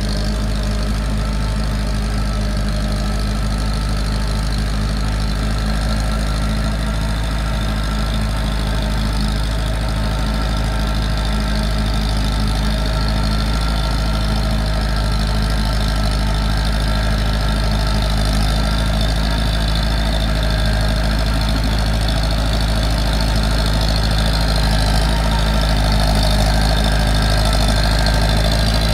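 Massey Ferguson 185 tractor's four-cylinder diesel engine running steadily under load as the tractor drives through flooded paddy mud, growing a little louder toward the end as it comes closer.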